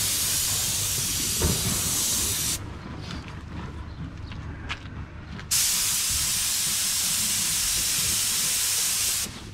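Paint spray gun hissing as it sprays clear coat, in two passes: the hiss stops about two and a half seconds in, starts again a little past halfway, and cuts off just before the end.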